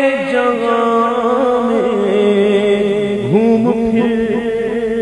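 Unaccompanied male naat singing: a long, wavering melismatic vocal line that swoops down and back up about three seconds in, over a steady held vocal drone.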